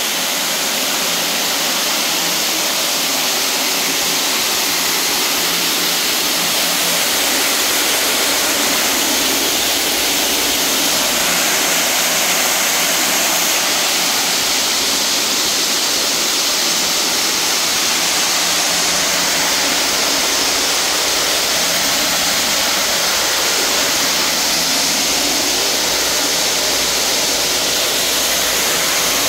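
Soybeans streaming down a sheet-metal spiral seed separator and pouring into a tub as they are cleaned: a steady, even rushing hiss.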